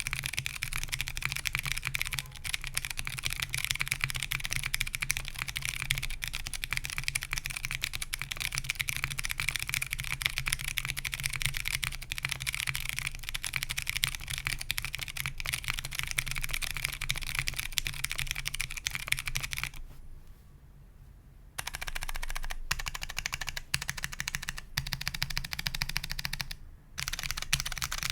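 Continuous fast typing on a top-mount custom mechanical keyboard with stock Kailh Box Mute Jade switches on a POM plate and CRP R4 keycaps: a dense stream of key clacks. It stops for about two seconds roughly two-thirds of the way through, then resumes.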